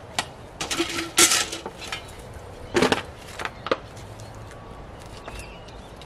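Trash being picked up and handled: a run of sharp clinks, knocks and rattles in the first four seconds, loudest twice.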